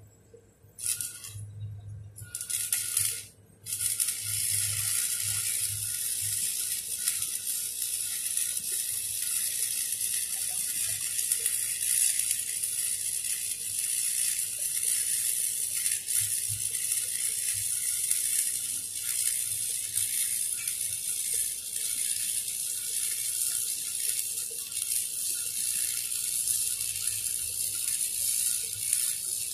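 Shielded metal arc (stick) welding on a steel pipe flange joint: the arc flares briefly twice in the first few seconds, then burns continuously from about four seconds in with a steady crackle and sizzle.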